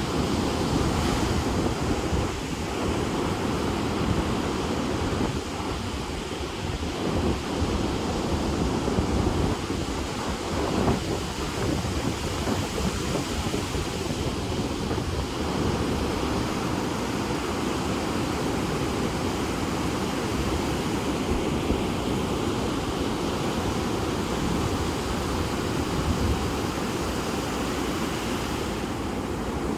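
Sea surf breaking and washing on the shore in a continuous rush, with a heavy, uneven low rumble of wind on the microphone.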